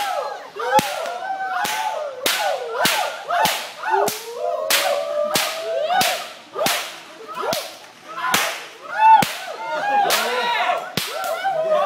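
Australian stockwhip cracked over and over in a steady rhythm, about two sharp cracks a second. Each crack is the whip's tip breaking the sound barrier.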